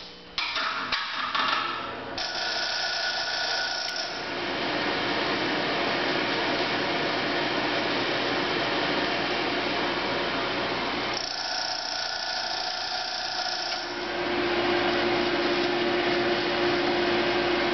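Electric blower of a Champion No. 433 cast-iron coal forge switching on about half a second in and running with a steady whir. Its sound shifts a few times as the air flow is regulated, with a steady hum coming in near the end.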